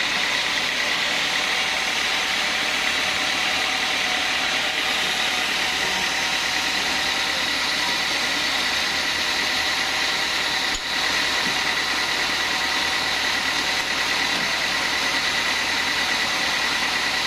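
Band sawmill running steadily, a constant high whine over dense machine noise, with a brief dip about eleven seconds in.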